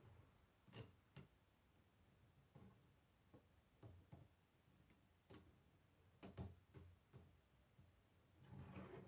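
Faint, irregular clicks and taps of plastic K'nex rods, connectors and gears being handled and snapped onto a model, with a short scuffle near the end.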